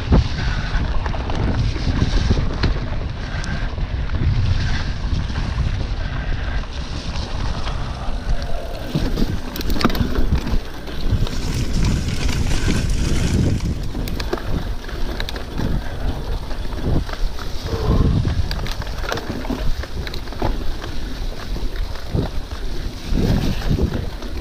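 Wind buffeting the camera microphone while a Specialized Epic Comp full-suspension mountain bike rides a forest dirt trail. Under it runs a steady low tyre-and-trail rumble, with frequent knocks and rattles as the bike goes over bumps.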